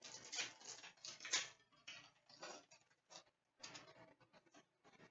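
Hockey card pack wrapper crinkling and rustling in quick, irregular bursts as the pack is handled and torn open. The bursts are busiest in the first second and a half, then sparser.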